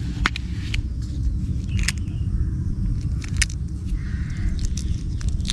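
Sharp plastic clicks and snaps as a small hexagonal plastic case of camphor tablets is opened and handled, about five in all, over a steady low rumble.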